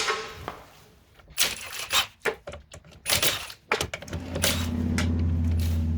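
Short bursts of hissing and scrubbing as a car wheel is cleaned, then a motor starts about four seconds in and runs with a steady low hum.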